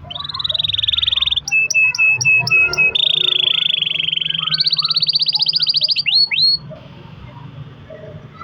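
Domestic canary singing long, rapid rolling trills at changing pitches, broken by a run of about six separate repeated notes, and closing a little after six seconds in with a few quick sweeping notes.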